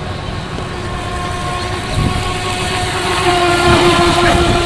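Brushless electric motor of a radio-controlled speedboat running at speed with a steady, high whine that grows louder as the boat passes close, about three seconds in.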